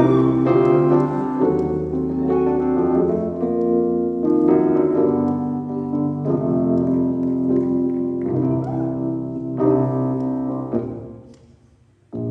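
Piano played live in slow, sustained chords. The sound fades away near the end, then cuts back in abruptly.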